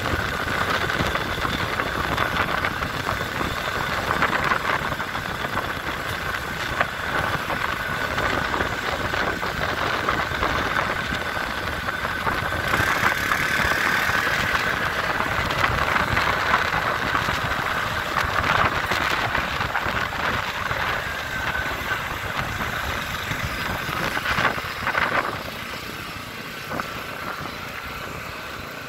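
ATV engine running steadily while riding along a paved road, heard from aboard the vehicle. It gets quieter about 25 seconds in.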